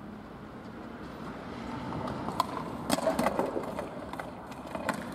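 Skateboard wheels rolling on pavement, with a sharp clack about halfway through and a few more just after as the board is popped for a backside trick and landed, then it rolls on.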